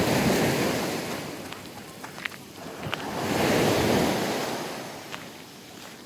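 Small sea waves washing up on a shell-and-pebble beach, the surf swelling and fading twice, about three and a half seconds apart, with wind on the microphone and a few faint clicks.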